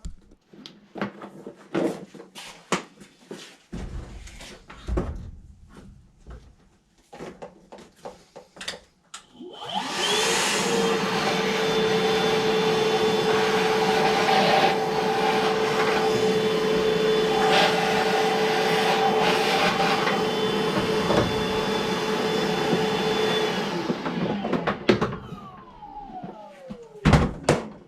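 Scattered clicks and knocks of handling, then a vacuum cleaner switched on about ten seconds in and running with a steady whine for about fourteen seconds before it is switched off and winds down with falling pitch.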